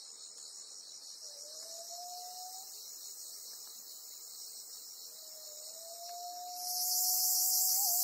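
Cicadas singing in a dense, finely pulsing drone that grows suddenly louder near the end. Beneath it, two faint long whistled tones rise slowly in pitch.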